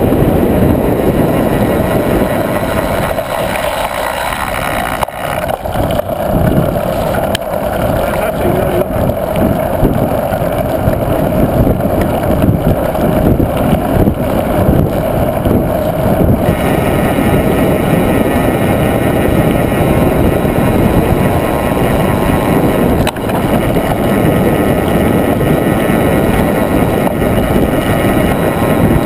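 Mountain bike rolling fast downhill on a road: loud wind rush on the microphone over steady tyre rumble, with frequent small knocks and rattles over the bumps.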